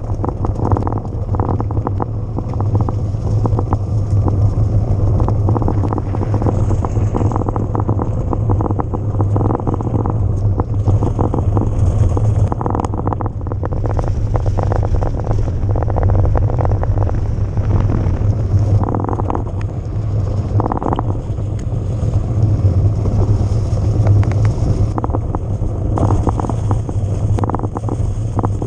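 Wind rushing over the camera microphone while riding a Haibike XDURO AllMtn 2.0 electric mountain bike, a steady low rumble broken by frequent short rattles and knocks from the bike over rough ground.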